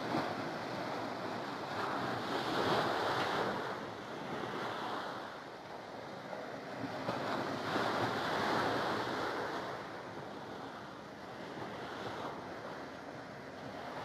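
Sea surf breaking and washing up the beach to a seawall: a steady rush of water that swells with each wave, about every five seconds.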